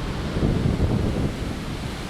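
Big winter storm surf breaking and washing, with gusty wind buffeting the microphone as a heavy, uneven low rumble.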